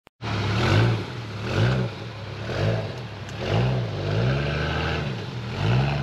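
A vehicle engine revved in about six quick surges, rising and falling in pitch roughly once a second, with one longer hold a little past the middle.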